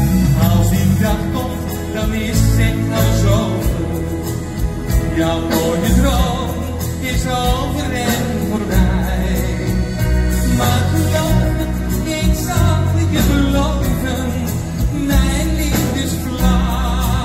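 A male singer singing live into a microphone over a band with drums, electric guitar and a heavy bass line.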